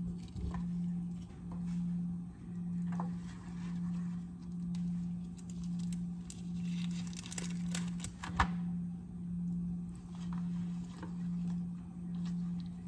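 A low hum that swells and fades about once a second, under light clicks and rustles of stuffed salmon fillets being laid by hand into a disposable aluminium foil pan, with one sharper tap about two-thirds in.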